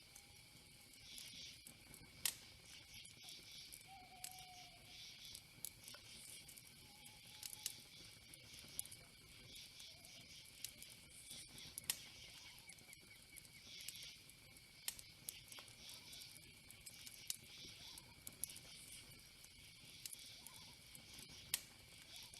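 Faint insect chirring in recurring patches over a steady high-pitched whine, with scattered sharp clicks and a few faint short whistles.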